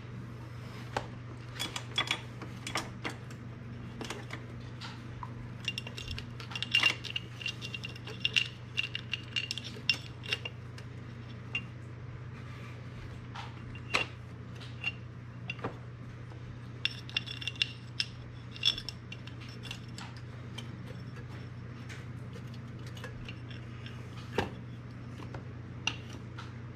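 Irregular light metal clinks and taps as the cylinder of a Honda TRX450R engine is worked down over the piston and rings, in clusters, over a steady low hum.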